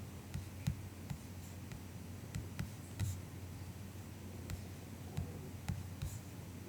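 Soft clicks on a MacBook, about a dozen scattered at an irregular, unhurried pace, over a low steady hum.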